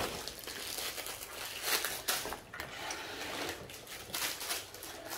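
Plastic packaging crinkling and rustling as small items are handled, with several sharper crackles.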